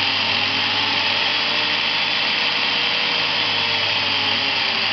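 Angle grinder running steadily on a knob-type speed controller, its pitch sagging slightly near the end as the speed is turned down.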